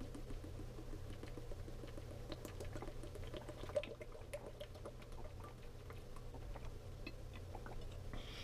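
A person drinking water in long gulps from a plastic bottle: soft swallowing sounds and small clicks of the plastic, with one louder click a little under four seconds in, over a steady low hum.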